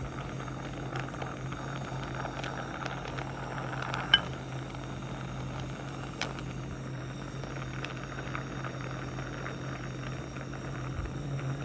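Steady hissing roar of a soldering torch flame heating a silver bezel and backplate until the solder flows. A sharp click about four seconds in, and a fainter one about two seconds later.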